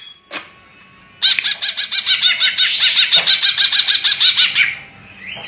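Cucak ijo (green leafbird) singing a rapid run of repeated arching notes, about eight a second, starting about a second in and lasting some three and a half seconds, after a short click.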